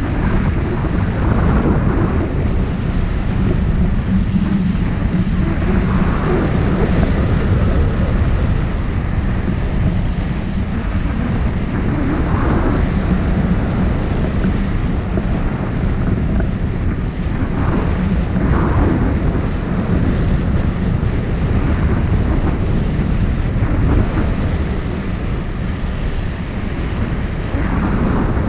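Wind rushing over the microphone of a wing-mounted camera on a hang glider in flight: a loud, steady low rumble, with a few brief hissy gusts now and then.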